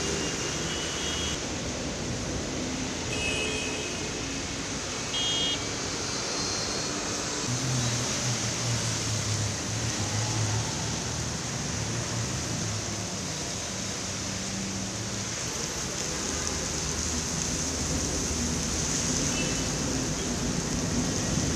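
Heavy rain falling on a busy city road, a steady hiss, with traffic engines and tyres on the wet road. A few short high beeps sound around 3 and 5 seconds in.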